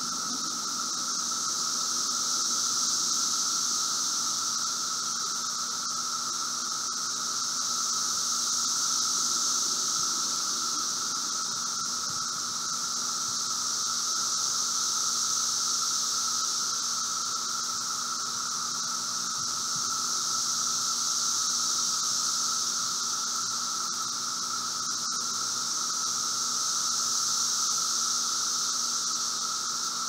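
Chorus of Brood V seventeen-year periodical cicadas (Magicicada): a dense, continuous high-pitched droning that swells and fades in waves about every six seconds, with a lower, steadier drone beneath it.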